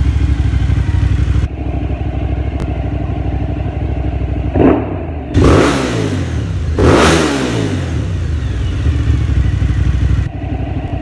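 2005 Cagiva Raptor 1000's Suzuki-derived V-twin with twin Remus Grand Prix exhausts, idling and then revved three times in neutral. Each time the revs rise quickly and drop back to idle, the last two blips reaching about 7,500 rpm.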